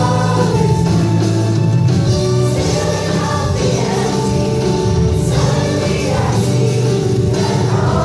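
Middle school chorus singing together in harmony, the voices sustained and continuous.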